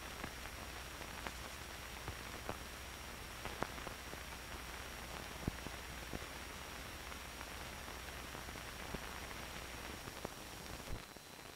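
Steady hiss and low hum of an old film print's silent soundtrack, dotted with scattered clicks and pops, with a faint high whine throughout; the hum drops away near the end.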